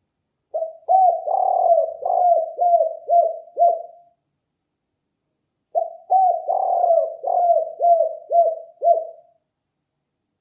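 Spotted dove cooing, the song type Indonesian dove keepers call 'kuk 4'. Two phrases of quick repeated coos, each about three and a half seconds long, are separated by a pause of about a second and a half.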